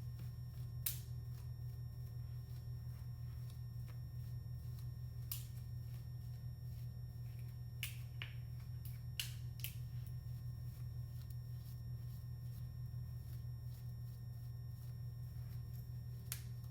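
A comb drawn through a synthetic wig, giving a few brief scattered clicks and scratches, over a steady low electrical hum.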